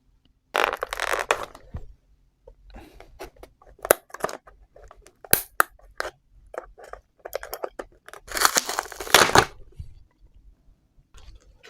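Plastic retail packaging of a Rubik's Cube being torn and pulled open by hand: a few loud ripping bursts, one just after the start and one about two-thirds through, with crinkling and many sharp clicks and knocks of plastic between them.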